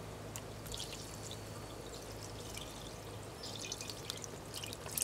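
Beef broth poured from a carton into the liquid already in a pressure cooker's pot: a faint splashing trickle that grows busier near the end.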